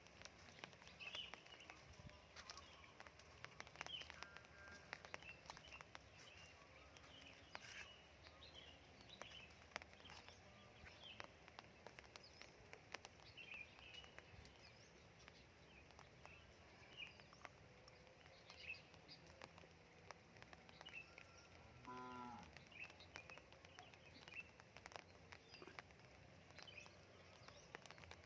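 Faint outdoor ambience after rain: raindrops dripping in scattered soft ticks while small birds chirp in short repeated calls. About three quarters of the way in comes one brief, lower animal call.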